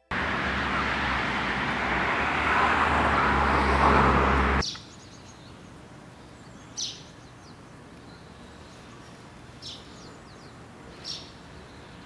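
A loud rushing noise with a low hum, like wind or passing traffic, runs for the first four and a half seconds and cuts off suddenly. Then comes quiet street ambience with a few short bird chirps, about four in all.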